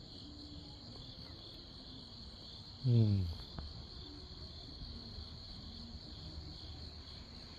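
Crickets and other grass insects chirping in a steady high trill, with a second, pulsing chorus just beneath it. About three seconds in comes one short, low voice-like sound that falls in pitch.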